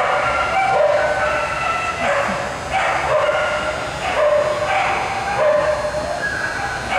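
A dog barking over and over in short, pitched barks, about two or three a second.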